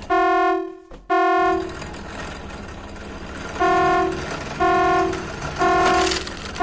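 A loud horn-like electronic tone on one unchanging pitch, sounded in blasts of about half a second roughly once a second: two at the start, then a hissy pause, then three more.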